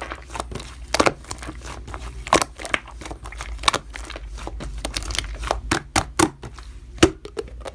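Slime being squeezed and worked by hand, giving irregular small pops and crackles.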